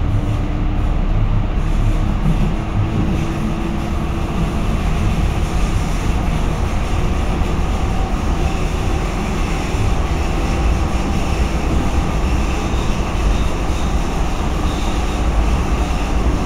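Steady, loud running noise inside an Essen Stadtbahn light-rail car moving through a tunnel: a continuous deep rumble of wheels on rails.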